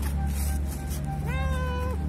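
A hungry stray cat meows once, asking for food: a single drawn-out meow about a second in that rises at the start, holds its pitch for over half a second and drops away. A steady low hum runs underneath.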